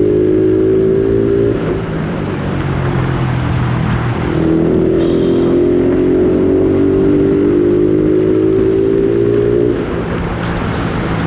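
Yamaha Sniper 135 motorcycle engine revving through an aftermarket Replica Pro standard-type exhaust, the pitch climbing slowly while the revs are held. It eases off about one and a half seconds in, revs up again from about four seconds to nearly ten, then eases off again.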